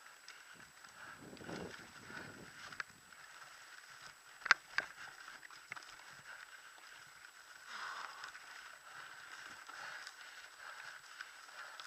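Mountain bike rolling over a grass and dirt trail, heard from a camera on the rider: a low rumble of tyres and frame rattle, with two sharp knocks about four and a half seconds in, the loudest sounds, and a few smaller ticks.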